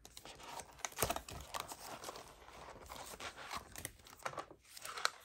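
Cash envelopes and banknotes being handled: paper rustling and crinkling with many small clicks, one sharper rustle about a second in and another near the end.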